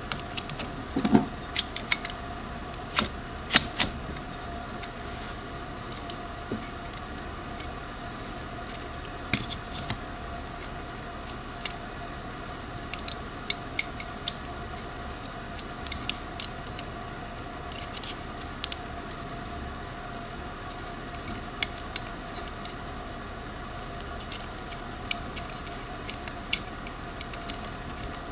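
Scattered small clicks and taps of parts and tools being handled, a cluster of them in the first few seconds and then sparser, over a steady background hum with a few held tones.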